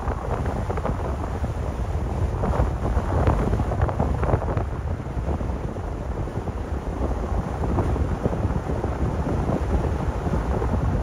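Wind buffeting the microphone over the low rumble of a car driving on the road.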